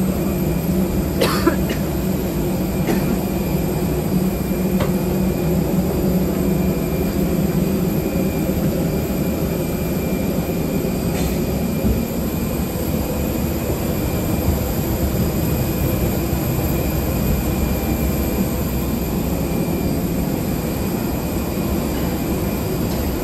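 Steady hum inside an Airbus A321 airliner's cabin, with a few short sharp clicks or knocks in the first five seconds and one more about eleven seconds in.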